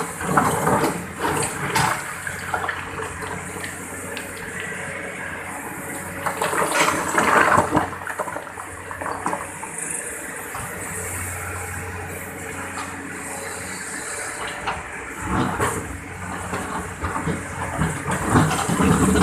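Excavator digging at a river bank: water and mud sloshing and gushing, with repeated knocks and scrapes, over a low machine hum.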